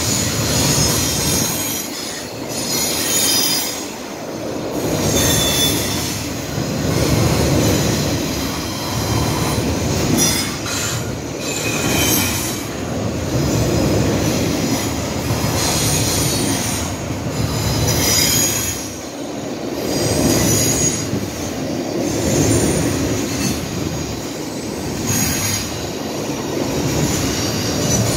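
Double-stack intermodal container cars rolling over a steel girder railway bridge: a continuous rumble of wheels on rail that swells and eases about every two seconds as the car trucks pass.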